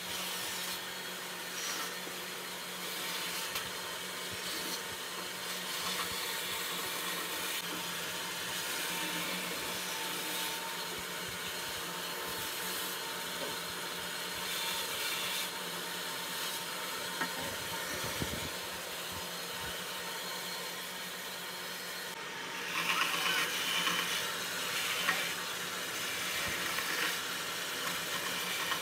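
Bandsaw running with a steady motor hum, its blade cutting through small blocks of wood. The cutting grows louder and harsher for a few seconds in the last third.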